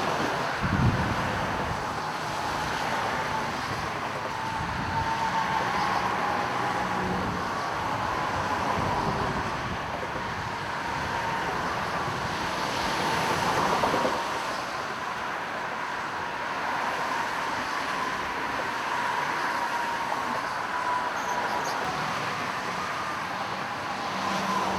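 Steady road traffic noise, with a faint steady whine running through it and a slight swell about halfway through.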